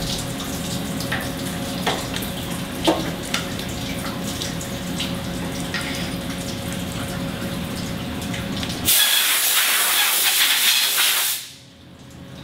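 Steady machine-shop hum with light metallic clicks of parts and the vise being handled on a Haas CNC mill's table. About nine seconds in, a loud rushing hiss runs for a couple of seconds and cuts off sharply.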